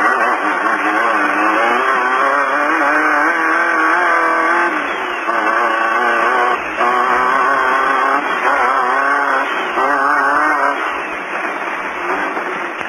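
Off-road race car engine heard from inside the car, its revs rising and falling constantly over rough ground. A few short breaks come where the revs drop and pick up again.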